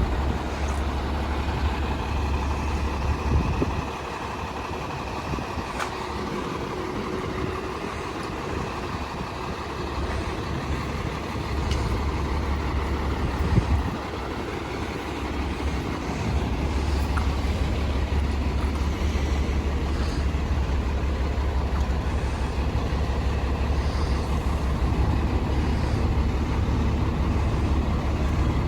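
Heavy diesel engine of a Seagrave Marauder II fire engine running with a steady low rumble. It drops quieter about four seconds in and grows louder again about halfway through, with one brief sharp knock just before the halfway point.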